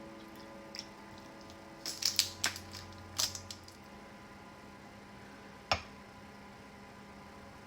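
Light kitchen handling sounds: a quick cluster of clicks and taps of kitchenware about two to three and a half seconds in, and one sharp click near six seconds, over a steady faint hum. A held music note fades out at the start.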